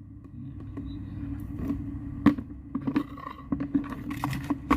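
Hands handling product packaging at close range: scattered clicks, taps and scrapes over a steady low hum.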